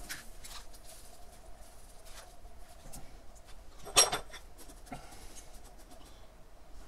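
Fingers working gritty, perlite-rich potting mix around jade plant stems in a plastic nursery pot: scattered faint scratching and crunching, with one sharper click about four seconds in.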